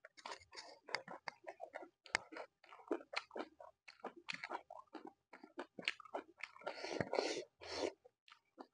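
Close-miked chewing of a hand-fed mouthful of rice and noodles: irregular wet mouth smacks and small crunches, busiest about seven seconds in.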